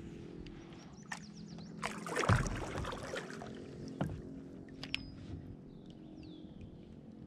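Sounds of fishing from a plastic kayak: a few light clicks and knocks from the hull and tackle, and a louder noisy burst with a low thump about two seconds in. Faint bird chirps come in near the end.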